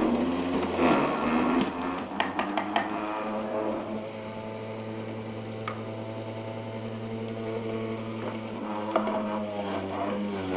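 Geepas electric juicer's motor running while carrots are pressed down the feed chute: gritty grinding with a few clicks over the first couple of seconds, then a steadier motor hum whose pitch shifts near the end as more carrot is pushed in.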